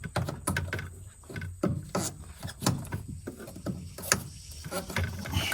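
Pliers working a spring clamp on a fuel hose: irregular metallic clicks and scrapes as the clamp is gripped and slips.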